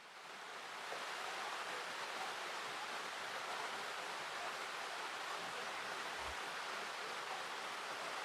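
Steady, even rushing noise with no distinct events, fading in over about the first second.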